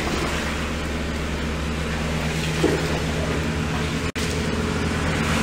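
Boots wading and splashing through shallow muddy floodwater, over a steady low hum.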